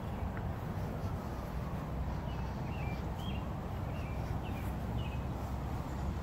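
A bird chirping a quick series of short, high calls from about two seconds in until about five seconds in, over a steady low outdoor rumble.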